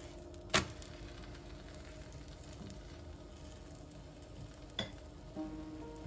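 Crepe sizzling in a nonstick frying pan. About half a second in there is a sharp slap as the crepe is flipped and lands back in the pan, and a lighter tap follows near the end.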